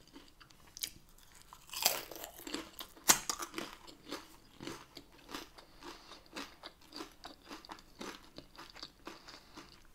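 Close-up eating sounds: a crunching bite into a crisp fried tortilla piece topped with shrimp ceviche about two to three seconds in, then steady crunchy chewing with small repeated crunches.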